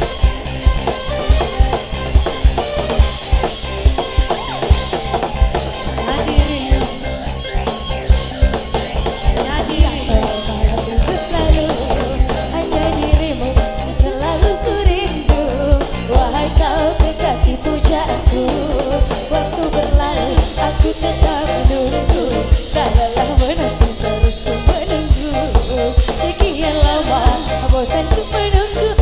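Live band playing an upbeat song: a drum kit with a steady kick-drum beat, electric guitars and bass, with a woman singing over it from a few seconds in.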